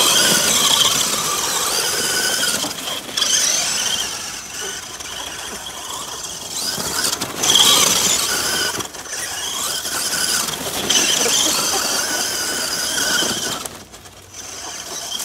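RC monster truck's electric motor and two-speed gearbox whining under throttle, the pitch rising and falling as the truck speeds up and slows, over the rough noise of its tyres on loose dirt. The whine drops away briefly near the end.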